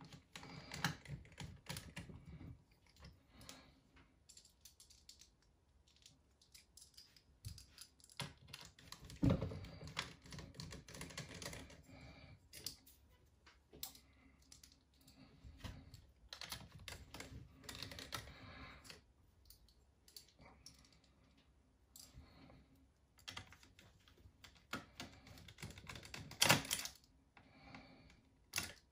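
Small clicks, taps and rattles of hand work inside an open 2011 MacBook Pro: a small screwdriver turning the fan screws and parts being handled. They come in bunches of a few seconds each, with quiet gaps between.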